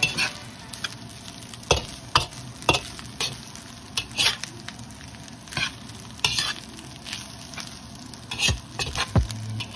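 Fried rice stir-frying in a wide pan: a steady sizzle broken by irregular scrapes and knocks as a slotted spatula tosses the rice against the pan.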